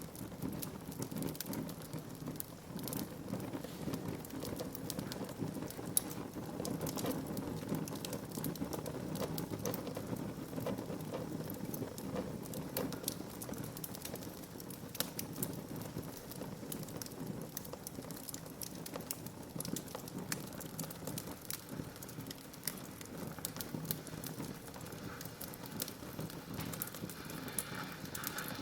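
Fire burning in a fireplace: a steady low rush of flames with frequent small crackles and pops, and one sharper pop about six seconds in.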